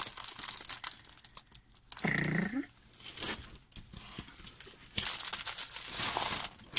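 Clear plastic cover film on a diamond painting canvas crinkling and rustling in irregular bursts as the sheet is handled and a tape measure is laid across it, loudest in the last couple of seconds. A brief hum of a voice about two seconds in.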